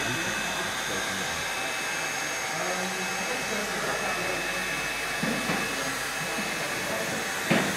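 Hand-held electric power tool running steadily with a whirring motor and fan noise. A single knock near the end.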